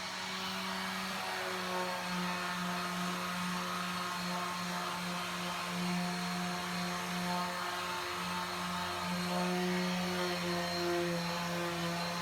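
Electric power sander running steadily on a painted plywood panel, a constant motor hum with the hiss of abrasive on paint.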